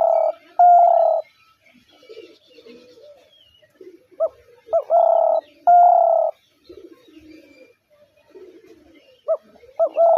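Spotted dove cooing in repeated phrases about five seconds apart. Each phrase is a few short notes followed by two longer coos: one at the start, one around the middle, and one beginning near the end. Fainter low coos and small chirps from other birds fill the gaps.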